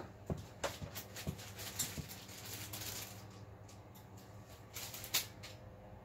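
Things being handled: scattered light knocks and clicks with some rustling, and one sharper click about five seconds in, over a steady low hum from running rack equipment.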